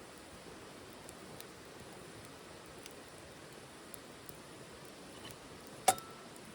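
Wood fire burning in a titanium wood stove: a soft steady hiss with faint scattered ticks, and one sharp, loud crack of the burning wood near the end.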